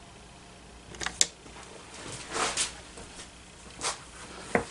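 Handling noise: a few light clicks and a short rustle over quiet room tone.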